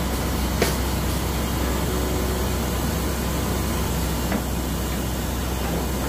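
Heavy machinery engine running steadily at a constant speed, a low drone under a wash of mechanical noise, with a couple of faint knocks.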